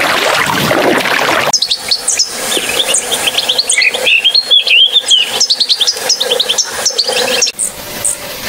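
A rush of sea water cuts off about a second and a half in and gives way to a common linnet's song: a fast twittering run of high chirps and short trills, which stops about a second before the end.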